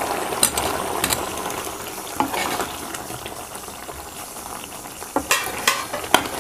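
Paneer cubes sliding off a plate into thick simmering gravy in a pan. A spatula stirs them through, scraping and knocking against the pan a few times, with a cluster of knocks near the end, over the low hiss of the bubbling gravy.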